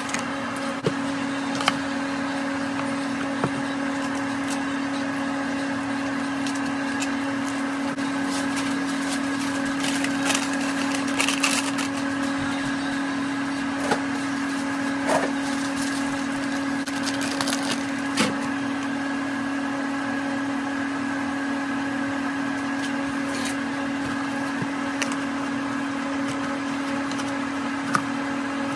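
A steady hum from a running kitchen appliance motor, with scattered light clicks and taps, most of them about a third of the way in and again just past halfway.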